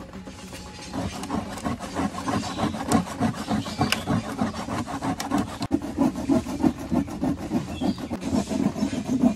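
Quick, repeated hand-tool scraping strokes, several a second, starting about a second in, as part of making a dappu frame drum.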